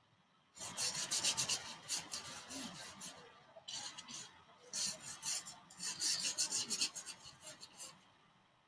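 A paintbrush scrubbing oil paint onto a stretched canvas in quick back-and-forth strokes, a dry scratchy brushing that starts about half a second in and stops near the end.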